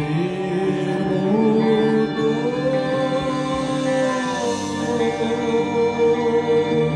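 Rock band playing live, a singer holding a long note over sustained chords.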